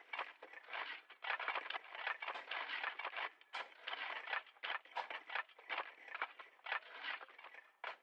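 Shovels digging: an irregular run of quick scraping strokes, several a second, with no low thud.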